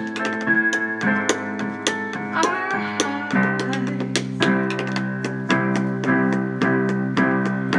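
Live band playing an instrumental passage: held electric guitar chords over a drum kit with steady cymbal and drum hits, the chord shifting lower and fuller about three seconds in.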